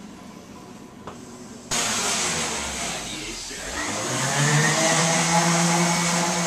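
A loud, steady hiss starts abruptly about two seconds in. A couple of seconds later a motor hum joins it, rises in pitch, then holds steady.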